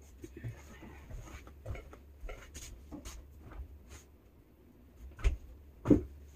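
Food containers being put into a refrigerator: light clicks and rattles, then two sharp knocks about half a second apart near the end.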